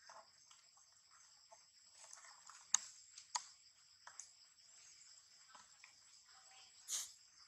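Steady high-pitched drone of insects, with two sharp clicks about three seconds in and a brief rustle near the end.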